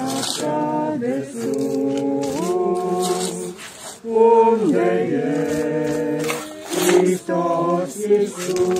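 Several voices singing unaccompanied in harmony, funeral singing with long held notes that slide from one pitch to the next and short breaths between phrases.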